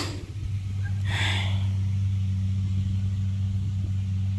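Kubota DC70 rice combine harvester's diesel engine running with a steady low drone, with a short hiss about a second in.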